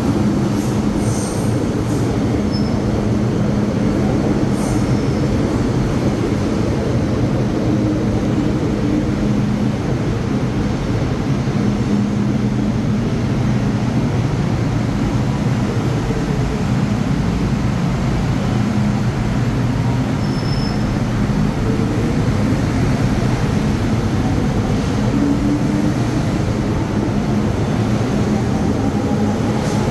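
MTR Metro Cammell EMU (M-Train) electric train departing an underground station: a steady rumble from the moving train, with a low hum running through it.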